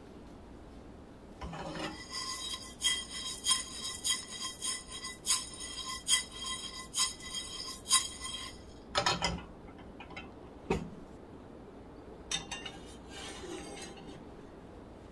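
Whole spice seeds rattling and skittering in a nonstick frying pan as it is shaken over a gas burner for about seven seconds. The pan is then set back on the grate with a knock, and near the end a stainless steel saucepan is set down on the stove with a softer clatter.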